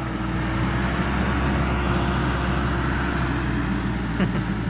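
Diesel farm tractor engines running steadily: a low, even drone with a faint steady whine over it.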